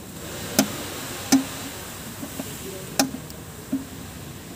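Sharp plastic clicks and knocks, four louder ones spread irregularly over a few seconds, as a car wiring harness in corrugated plastic conduit is handled and pushed into place.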